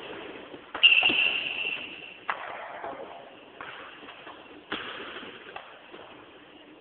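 A few sharp knocks of a shuttlecock being kicked back and forth, echoing in a sports hall. The loudest comes about a second in, with others a little past two seconds and near five seconds.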